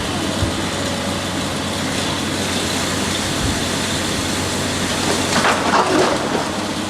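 Heavy machinery running steadily, with a louder, rougher burst of noise lasting about a second, starting around five seconds in.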